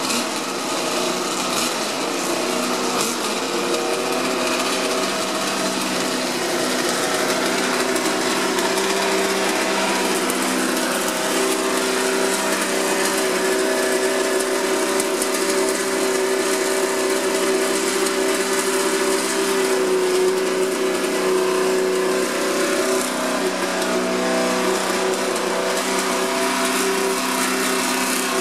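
Honda racing engine running at a steady, fast warm-up idle, with a slight rise in pitch around twenty seconds in.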